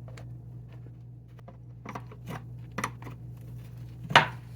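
Light scattered clicks and taps of a pool filter's plastic drain plug being handled and threaded in by hand, with one sharper knock near the end.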